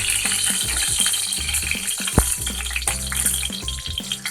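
Ghee heating in a kadai, sizzling with scattered small crackles and one sharper click about two seconds in.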